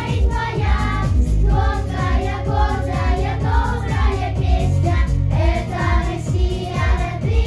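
A school vocal ensemble of children singing a song together over instrumental accompaniment with a steady beat.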